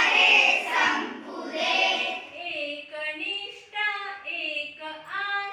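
Schoolchildren singing a song together in unison. The loud full-class singing gives way about two and a half seconds in to fewer, clearer voices carrying the melody in steps.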